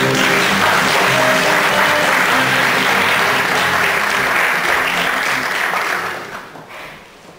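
Audience applauding, with instrumental music still sounding faintly underneath for the first few seconds. The applause dies away about six seconds in.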